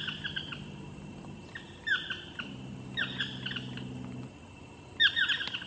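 Chestnut-mandibled toucans calling: four bursts of downward-sliding yelps, each trailing off in quick echoing repeats.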